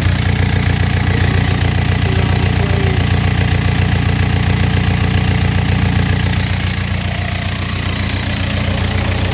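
Mustang 940 skid steer loader's engine running steadily, easing off slightly about seven seconds in.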